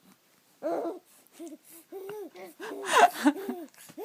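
A baby giggling in a quick run of short, rising-and-falling voiced bursts, the loudest about three-quarters of the way through.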